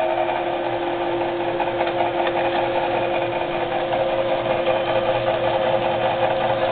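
VECTRAX 20-inch drill press with a 2 hp three-phase motor running steadily in reverse at low spindle speed, a steady motor hum with a higher whine over it.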